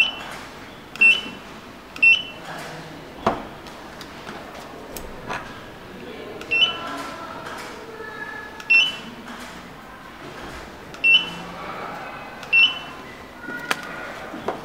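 Netum NT-1203 handheld wireless barcode scanner beeping as it reads codes: seven short high beeps at irregular intervals, each one confirming a successful scan. A single sharp click sounds about three seconds in.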